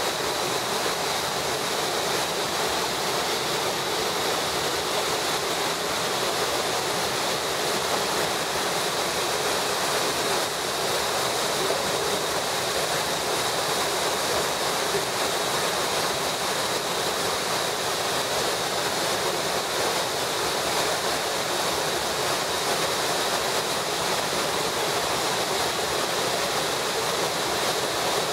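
Waterfall in full, muddy flood with water released through a weir opening, a steady rush of falling water that does not change.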